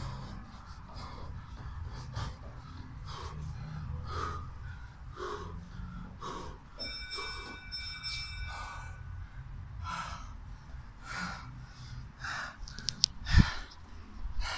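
A man breathing hard in sharp gasps, about one a second, while doing fast alternating foot steps in a push-up position, his socked feet padding on a wooden floor. About a second before the end a loud knock as the camera is handled.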